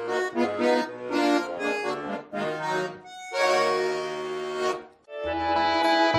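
Accordion playing an instrumental passage: quick short notes, then a held chord that stops about five seconds in. After a brief break a new phrase with bass notes begins.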